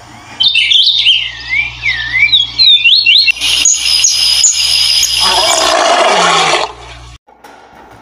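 Jungle sound effects for a title sequence. First come whistled bird calls warbling up and down for about three seconds, then a dense high hiss of forest ambience with thin high tones, and near the end a lower sound sliding down in pitch. A steady low hum runs underneath until the sound drops away about seven seconds in.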